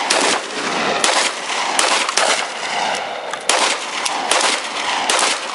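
Gunfire from a handgun and an M4-style rifle: roughly eight single shots, irregularly spaced half a second to a second apart, each trailing off in a long echo.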